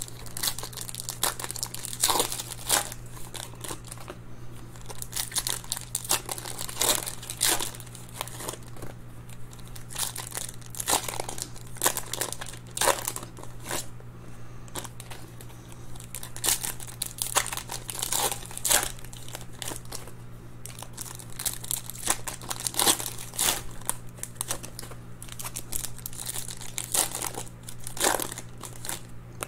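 Foil trading-card pack wrappers crinkling and tearing open as they are unwrapped, with cards handled between packs: irregular crackles throughout, over a steady low hum.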